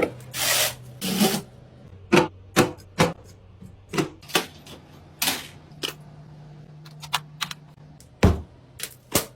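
Computer parts being handled and fitted during a PC build: irregular sharp clicks and knocks, about a dozen, with a few short scraping rustles near the start and again around the middle. A faint steady low hum sits underneath.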